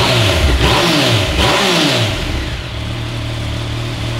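Yamaha MT-09's inline three-cylinder engine blipped three times in quick succession, the revs rising and falling each time, then settling back to a steady idle.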